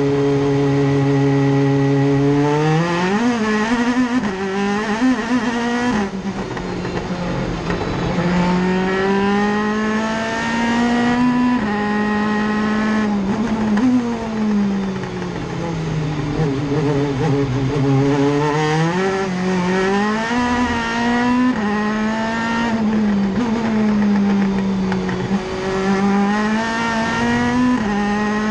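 Audi RS5 DTM race car's V8 heard from inside the cockpit on a flat-out lap. It holds steady revs for the first few seconds. Then the note climbs through the gears, dropping sharply at each upshift, and falls away under braking twice before pulling hard again.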